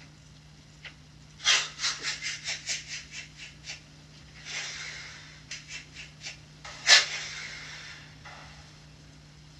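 A man's quick, heavy breaths heard through a baby monitor over its steady electrical hum. A run of short breaths about four a second starts a second and a half in and fades, and a single loud, sharp breath comes about seven seconds in.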